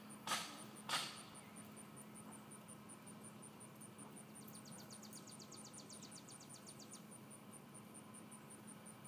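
Miniature dachshund puppy giving two short yips in the first second, then faint outdoor quiet with an even high pulsing and a rapid clicking trill lasting a couple of seconds midway.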